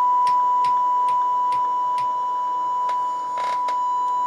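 Steady test tone from the transistor radio's speaker: the audio tone on a 455 kHz signal-generator signal coupled into the IF stage, getting through to the output, with a few light clicks over it.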